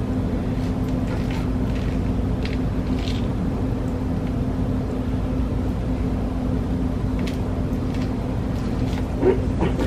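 A steady low mechanical hum with a constant tone in it, and a few faint soft ticks and rustles over it.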